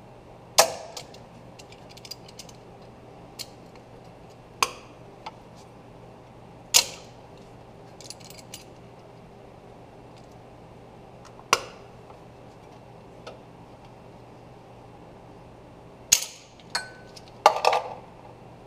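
Hand tools clanking against metal while a seized exhaust manifold stud is worked out of a Ford 351 Windsor cylinder head. Several sharp metal clanks come a few seconds apart, with a quick cluster near the end and light clicks between.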